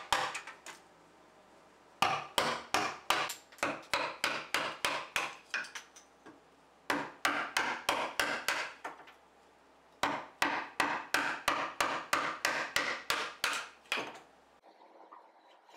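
A chisel struck with a mallet, chopping the waste out of a half-lap notch in a yellow-pine beam. Quick, evenly spaced blows come about three or four a second, in three runs split by short pauses, and the blows stop shortly before the end.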